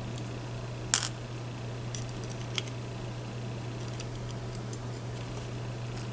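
A few light clicks of small lock parts and tweezers being handled, the sharpest about a second in, over a steady low hum.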